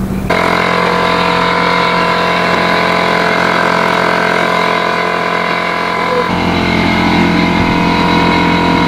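Air compressor running steadily while the pickup's tyres are being aired up; its sound changes about six seconds in.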